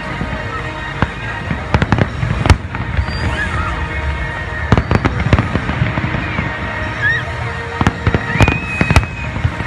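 Fireworks display: a run of sharp bangs and crackles about every second, some in quick clusters, over a steady low rumble, with music in the background.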